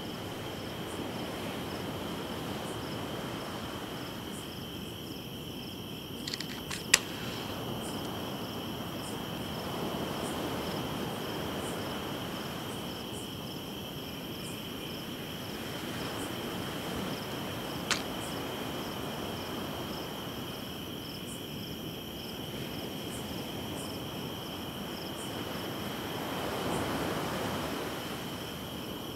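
Night ambience of crickets chirping steadily, with soft surf swelling and fading every several seconds. A sharp click about seven seconds in and another about eighteen seconds in.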